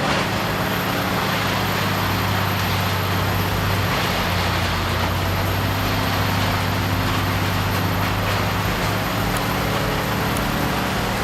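Morbark 1100 grinder's Cat C18 diesel engine running steadily, a deep even drone over a dense, steady rush of noise.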